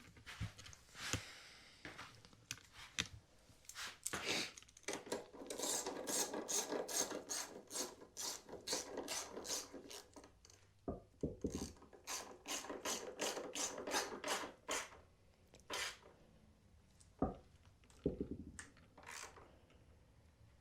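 Ratchet wrench clicking in runs while bolts are driven during washing-machine tub reassembly, with brief pauses and a few separate knocks of tools and parts near the end.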